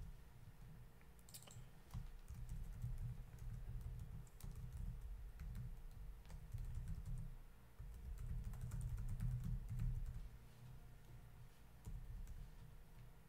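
Typing on a computer keyboard: a steady run of soft keystroke clicks with dull low thumps, pausing briefly a few times.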